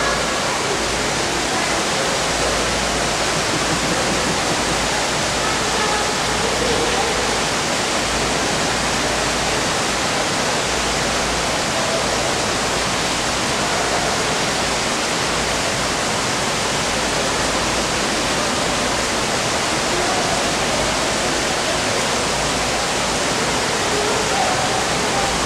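Steady rushing of running water, an even noise that does not change, with faint voices at a few moments.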